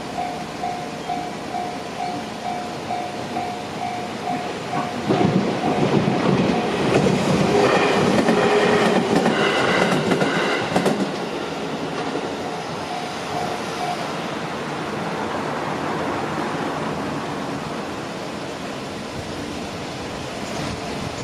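Japanese level-crossing warning bell ringing in steady pulses about twice a second, then a Tokaido Main Line train passing over the crossing, loud from about five seconds in to about eleven seconds. The bell can still be heard after the train has gone and stops about fourteen seconds in.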